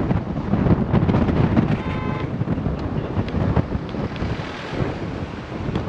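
Wind buffeting the microphone over the low rumble of a moving vehicle, with knocks and bumps throughout. A short horn toot sounds about two seconds in.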